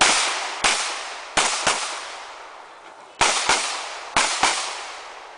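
Smith & Wesson M&P9 9mm pistol firing eight shots as four quick pairs of double taps, each shot sharp and followed by a fading echo. The pairs come about a second apart, with a longer gap in the middle.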